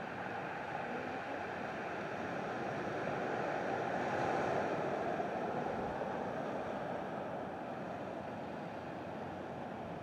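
Sea surf washing against the shore: a steady rush of waves that swells about halfway through and then eases off.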